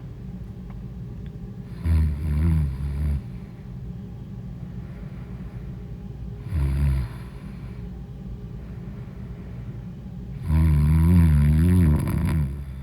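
A woman snoring loudly in her sleep: a snore about two seconds in, a short one in the middle and a longer one near the end, over a steady low hum.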